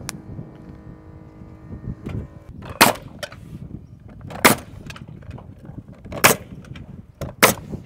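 Pneumatic nail gun firing four sharp shots, about one every one and a half to two seconds, starting about three seconds in, as it drives nails overhead into LP SmartSide engineered-wood panel siding.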